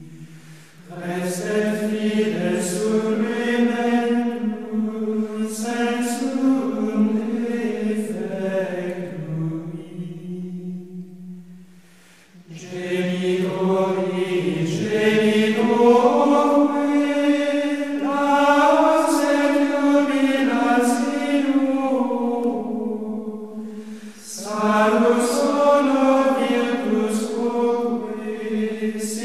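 Choir singing slow, long-held notes in unhurried phrases, with short breaths between phrases about 11 and 23 seconds in.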